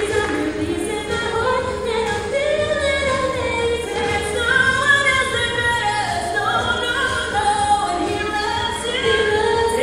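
High school show choir singing a pop medley, with women on handheld microphones carrying the lead melody over the group.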